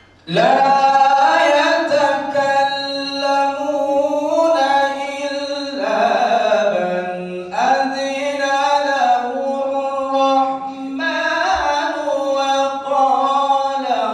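A male qari reciting the Quran in melodic tilawah style into a microphone, in long drawn-out phrases with ornamented turns of pitch. The voice comes in a moment after the start and takes up new phrases several times.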